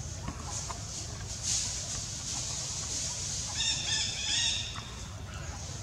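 A bird calls: a run of short pitched notes lasting about a second, starting about three and a half seconds in, over a steady low rumble.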